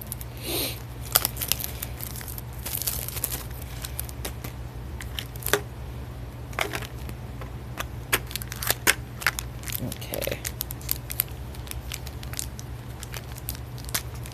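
Small cardboard toy box and its wrapping being torn open and crinkled by hand: an irregular run of sharp crackles and short rips, over a steady low hum.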